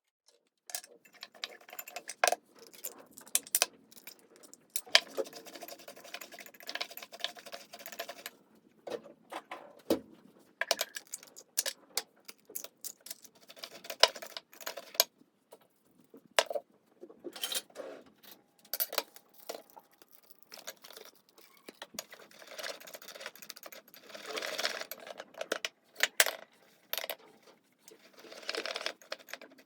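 Kitchen handling sounds of breakfast being made: a run of sharp clicks and clinks from dishes, utensils and containers being set down and handled, with stretches of rustling or scraping in between.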